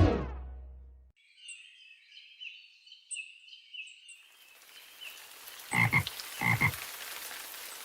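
Frogs croaking in a quick run of short calls, then a steady rain hiss comes in about four seconds in, with two louder croaks over it.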